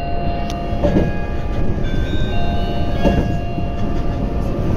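Passenger train running, heard from inside the carriage: a steady low rumble with several steady high-pitched tones over it, and a knock about a second in and again about two seconds later.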